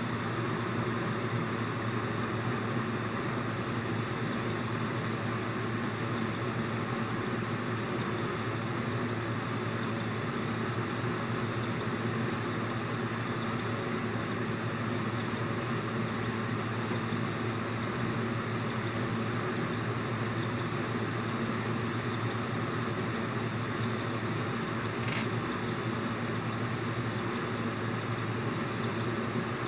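Homemade RepRap-style 3D printer running a print: a steady whirring hum from its fans and stepper motors.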